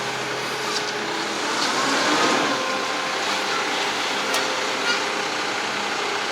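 Construction machinery engines running steadily at a concrete pour: a continuous mechanical roar with a few steady tones in it.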